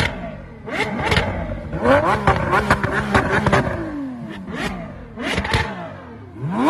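Lamborghini supercar engine revving in several blips: the pitch climbs quickly, holds briefly and falls back, about three times, with sharp cracks where some of the rises begin.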